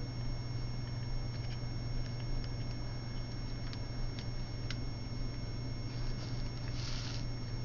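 Light scattered clicks and ticks from a CD ornament and its small metal chain being handled, with two short rustles near the end, over a steady low hum.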